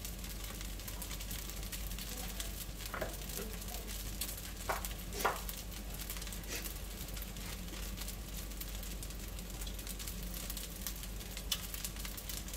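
Fried rice frying in a nonstick wok over a gas flame: a steady sizzle with a few sharp pops and crackles.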